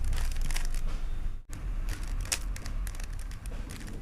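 Rubik's cube being turned by hand: a quick, irregular run of plastic clicks and clacks as the layers snap round, with a sudden short break about a second and a half in.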